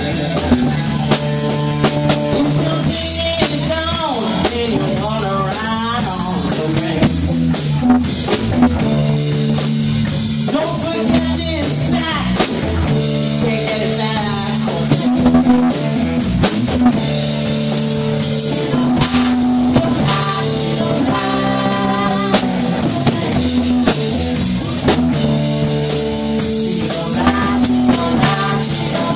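Live rock band playing: drum kit and electric guitar, with a woman singing over them.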